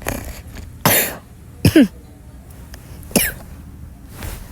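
A person coughing several short times, the loudest about a second in, then a quick double cough, another near the three-second mark and a fainter one near the end.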